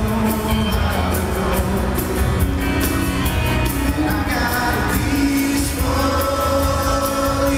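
Live band music heard from the audience: a singer at the microphone over acoustic guitar and band, with a heavy, steady bass.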